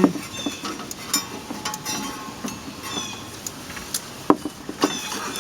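Serpentine belt being worked by hand past the engine fan and pulleys: scattered light knocks and clicks, with one sharper click a little past four seconds in.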